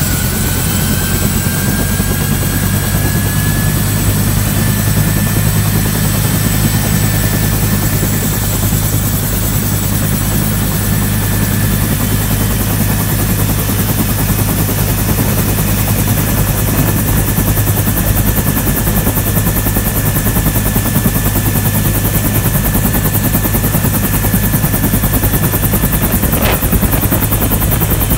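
Helicopter running close by: a steady low rotor beat under a high engine whine that rises slightly in pitch over the first few seconds. A single click sounds near the end.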